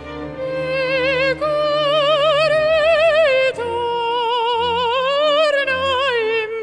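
Mezzo-soprano singing operatic aria, long notes held with wide vibrato over soft, steady accompaniment; the line drops to a lower note about halfway through and climbs again before easing off near the end.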